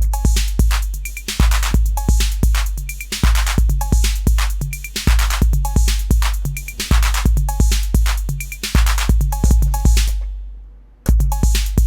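Acidlab Miami, a TR-808 clone drum machine, playing a programmed pattern: long booming 808 bass drum, crisp noisy hi-hat and snare hits, and short pitched tom notes on a steady beat. The pattern stops a little before the end and starts again about a second later.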